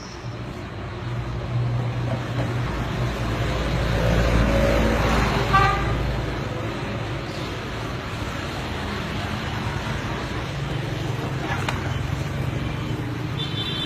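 Road traffic: a vehicle's engine rumble swells and passes, and a horn toots briefly about five and a half seconds in.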